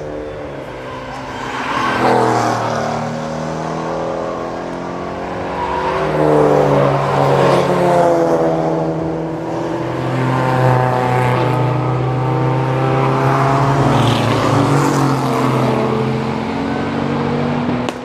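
Race cars passing one after another at racing speed, engines running hard; several cars swell past in turn, about 2 s, 6 to 8 s, 11 s and 15 s in, over a continuous engine drone.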